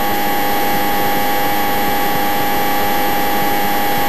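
Steady drone of a light training aircraft's engine and propeller heard inside the cockpit, a constant rushing noise with a few fixed hum tones.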